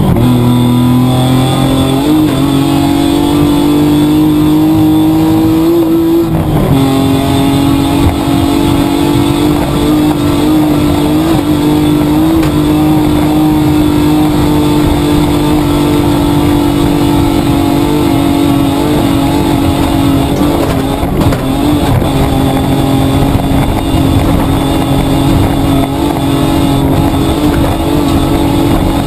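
Petrol engine of a Mitsubishi Triton running hard under load, heard from inside the cabin. The revs drop suddenly right at the start and again about seven seconds in, as at gear changes, then hold high and fairly steady.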